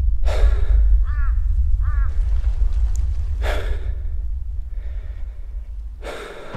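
A person breathing hard: three loud, sharp breaths, about half a second in, at about three and a half seconds and near the end, over a low steady drone that fades towards the end. Two short chirps come around one and two seconds in.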